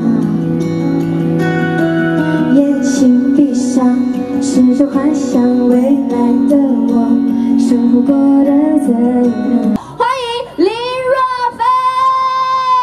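Live pop music from a concert stage: about ten seconds of band accompaniment with held chords and a steady beat, then a woman's voice comes in singing, ending on one long held note near the end.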